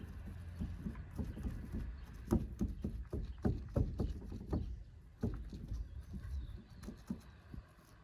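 A run of irregular dull knocks and thumps, loudest and closest together in the middle, over a low rumble.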